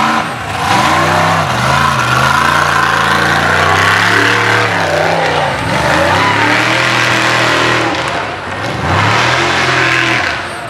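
Mud bog race truck's engine revving hard through the mud pit, its pitch falling and climbing again several times as the throttle is worked.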